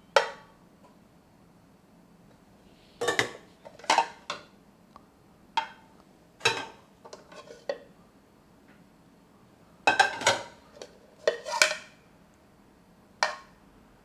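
Washed dishes and cookware clinking and knocking against each other as they are handled and set down: about a dozen separate sharp strikes, some in quick pairs, each with a short ring.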